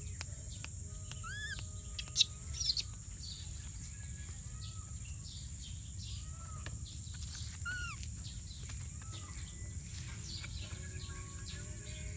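Birds chirping outdoors: short arched calls every second or two over a steady high insect hiss, with one sharp click about two seconds in.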